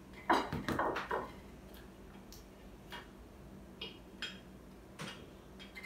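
Table knives, plates and graham crackers tapping and clinking while crackers are spread with marshmallow fluff and pressed into sandwiches. A cluster of knocks comes in the first second, then single light clicks now and then.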